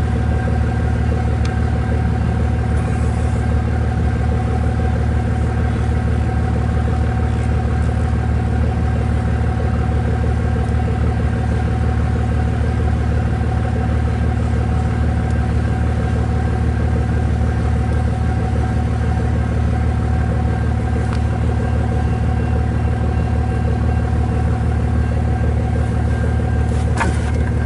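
Steady low engine hum of an idling vehicle, with a few steady tones above it and no change in level.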